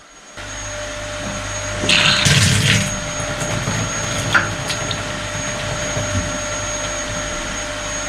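Steady drone of a small electric motor, with a louder rushing noise for under a second about two seconds in and a single click a little after four seconds.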